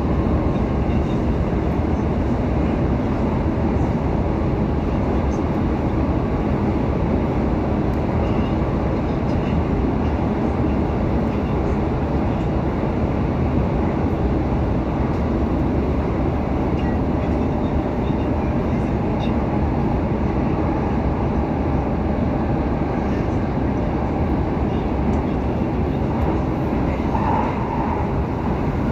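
Copenhagen Metro AnsaldoBreda driverless train running at speed through a tunnel, heard from inside the front car: a steady, low rolling noise of wheels on rail.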